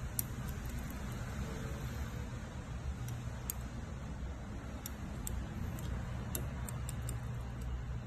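Faint, irregular little metallic ticks from a 2-in-1 lock pick working the pins inside a Yale 5-pin padlock cylinder, coming more often in the second half, over a steady low background hum.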